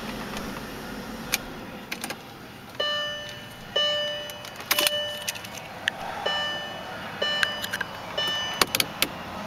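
Mercedes-Benz S430 dashboard warning chime sounding four times, in two pairs. Each chime is a clear tone that fades away. Sharp clicks and a jingle of the ignition keys fall in between.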